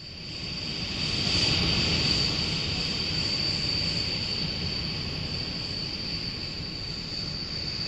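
Jet engines of a Short SC.1 vertical-takeoff research aircraft: a steady high whine over a rushing noise, swelling about a second in and then easing off slowly.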